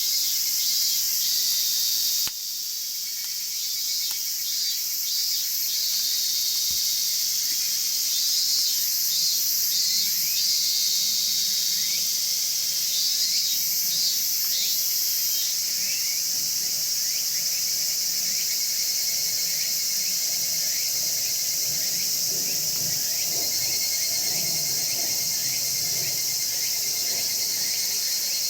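Crickets and other insects chirping in a steady, high-pitched night chorus, with trains of rapid chirps coming and going every few seconds.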